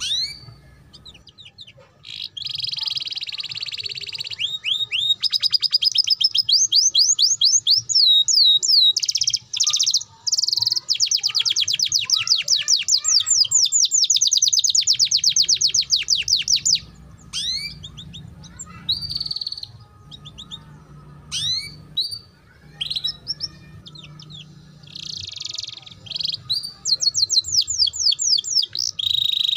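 Domestic canary singing: long, fast trills of repeated sweeping high notes in the rolling 'ngeriwik' style, with buzzy warbled passages. The song breaks into scattered single chirps about halfway through and picks up into trills again near the end.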